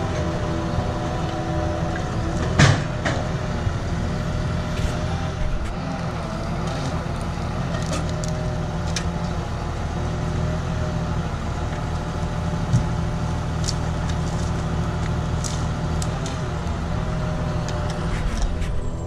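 Syn Trac tractor's engine running steadily while a trailer-mounted hydraulic forestry crane grabs and lifts logs, the engine note wavering slightly. A sharp knock comes about two and a half seconds in, and a smaller one about two-thirds of the way through.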